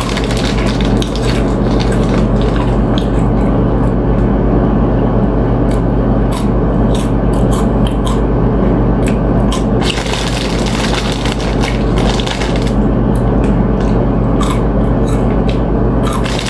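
Close-up eating: chips crunching and food chewed near the microphone, in clusters of sharp crackles, over a steady low hum.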